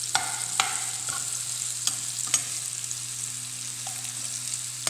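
Bitter gourd slices sizzling in hot oil in a non-stick frying pan while a spatula stirs and turns them. There are four sharp clacks of the spatula against the pan in the first half.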